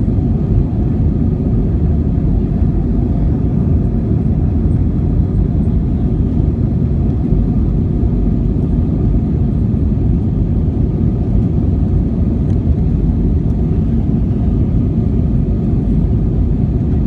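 Steady cabin noise inside a jet airliner in flight: the engines and the rush of air over the fuselage blend into a loud, even, low rumble.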